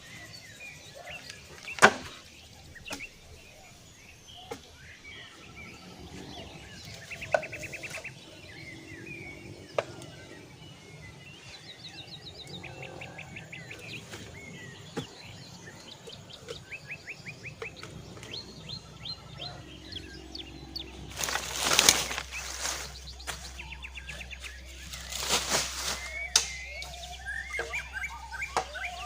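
Forest birds chirping and trilling throughout, with a few sharp knocks (the loudest about two seconds in) and two louder, longer bursts of noise about two-thirds of the way through.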